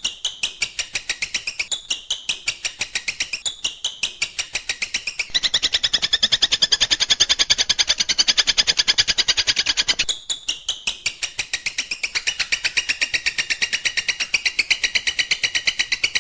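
Long-tailed shrike (cendet) song: a rapid, unbroken run of sharp repeated notes, the 'tembakan' burst, about seven a second. It gets louder and denser from about five seconds in until about ten seconds in.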